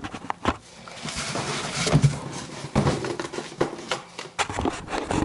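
Cardboard box and its packing being handled and emptied: a run of knocks and clicks with rustling and scraping.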